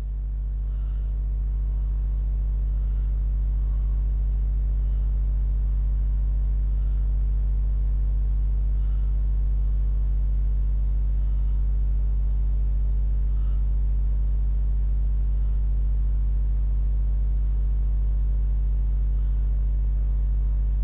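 Steady low electrical hum with a stack of steady tones, running at an even level underneath the recording. Faint light clicks come every second or two.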